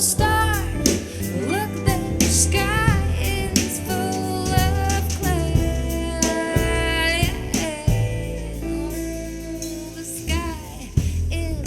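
Music with a singer: a sung melody with gliding, ornamented notes over steady bass and percussion.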